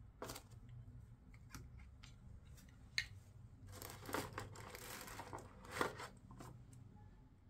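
Unboxing handling noises: scattered light clicks and taps of plastic parts against a cardboard box, with a stretch of rustling paper and plastic packaging in the middle. The sharpest clicks come about three seconds in and just before six seconds.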